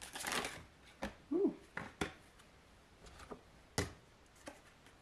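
Tarot cards being handled: a short papery rustle of shuffling, then a few separate light clicks and taps as cards are drawn and set down, with a brief low hum of voice about a second in.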